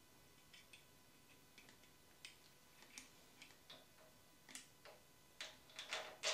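Faint, scattered light clicks and ticks from small metal engine parts being handled at the valvetrain: a roller rocker arm and a pump oil can. The clicks come more often near the end.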